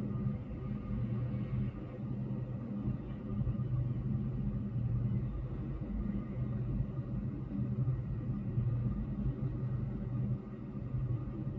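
Steady low rumble of distant city road traffic heard from indoors through a closed window, with a constant low hum underneath.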